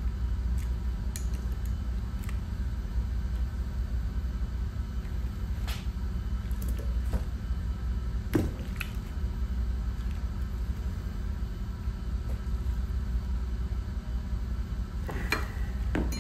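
Light clicks and taps of a pillow-block bearing and steel fan shaft being handled and adjusted on a workbench, the sharpest about eight seconds in, over a steady low hum.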